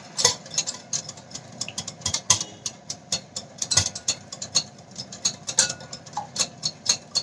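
Metal wire whisk beating yogurt and water in a glass bowl, its wires clicking against the glass about four times a second.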